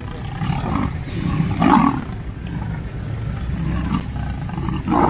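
Two leopards growling at each other in a territorial face-off between a resident and an intruder, with a steady low rumble and louder growls about a second and a half in and again near the end.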